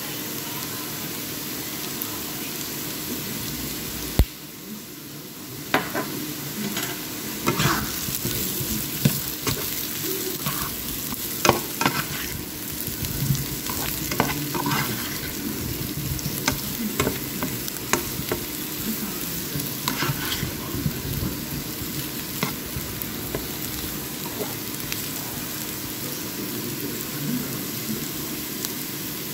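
Potato pieces sizzling as they fry in a nonstick pan, with a spatula repeatedly scraping and knocking against the pan as they are stirred through the middle stretch. A sharp click about four seconds in.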